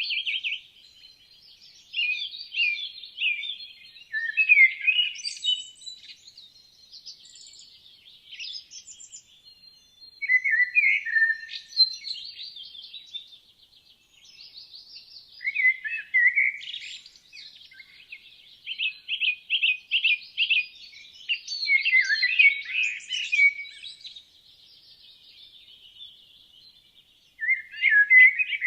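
Several woodland songbirds singing, their phrases and rapid trills overlapping in bouts broken by brief lulls.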